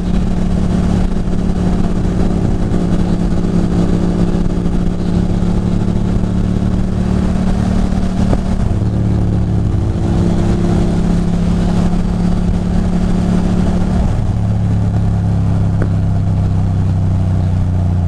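Ducati Monster 620's air-cooled L-twin engine running steadily at cruising speed, heard from the rider's seat. The engine note shifts slightly about ten and again about fourteen seconds in, and dips near the end as the throttle eases.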